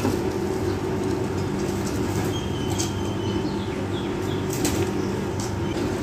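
A steady low hum, with a few faint clicks and rustles scattered through it.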